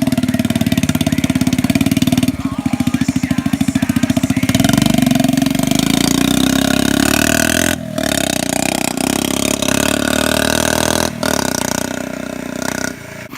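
A 1984 Honda ATC70's small single-cylinder four-stroke engine being ridden, with a rapid putting exhaust that rises and falls with the throttle. The sound breaks off briefly twice, then drops lower near the end.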